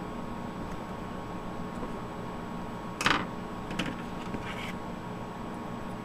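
A sharp click about three seconds in, then a few softer clicks and rattles, over a steady background hiss and hum: hands handling a Dell Inspiron 1520 laptop's keyboard and casing during reassembly.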